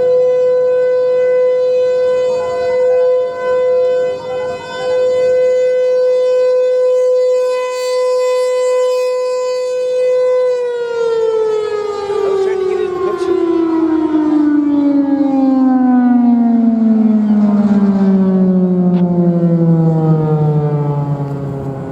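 Federal Signal Thunderbolt 1000 outdoor warning siren sounding a loud, steady tone, then winding down in a long, smooth fall in pitch starting about ten seconds in.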